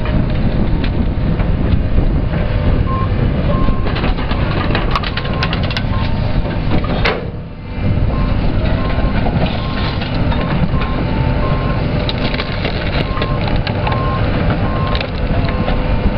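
Tracked excavator's engine running under load as its grapple crushes an ATV, with repeated cracking and snapping of plastic and metal. A beeping alarm sounds on and off from about three seconds in.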